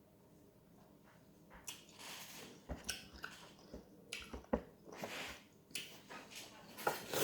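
A person chewing and smacking their lips while eating a sour lemon: irregular wet clicks and smacks that start about a second and a half in.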